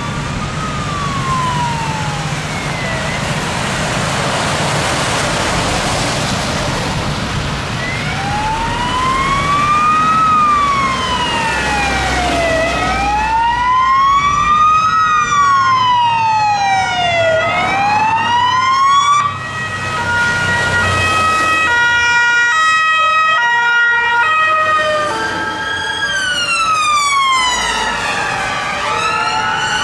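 Two fire engines passing with sirens sounding: several slow wailing sirens rise and fall out of step with one another, an alternating two-tone joins partway through, and faster sweeps come near the end. Heavy diesel engines and road traffic rumble underneath as the trucks go by.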